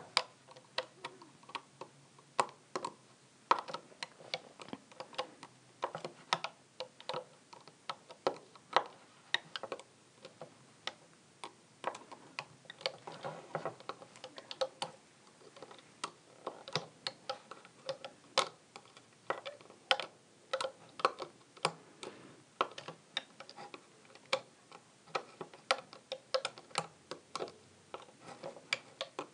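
Small irregular clicks and taps, about two or three a second, of a plastic hook working rubber bands over the pegs of a plastic Rainbow Loom as band after band is hooked across.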